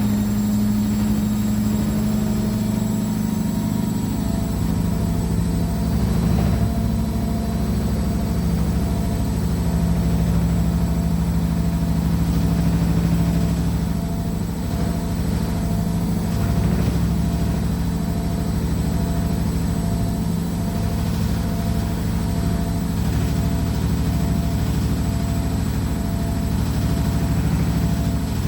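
Washing machine running a spin, a steady loud low rumble with fast rattling as the machine shakes and jumps about.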